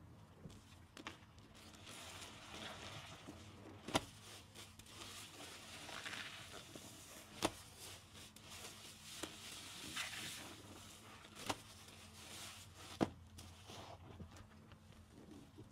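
Soapy car sponges being squeezed by hand: repeated wet, foamy squishing swells, with four sharp clicks along the way.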